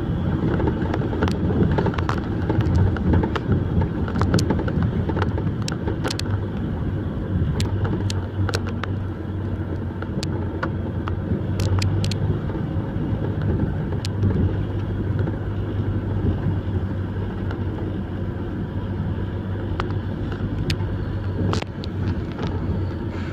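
Logging truck engine running steadily under load while it pulls logs, with frequent short sharp knocks and clanks over the hum.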